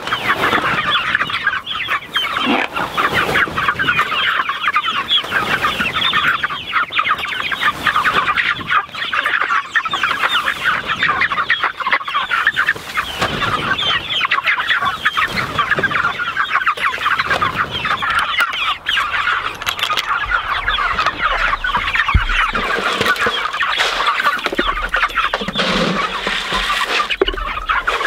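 A flock of young Cornish cross meat birds and Barred Rock chickens in a pen, calling all together: a constant chorus of many overlapping high chirps and peeps.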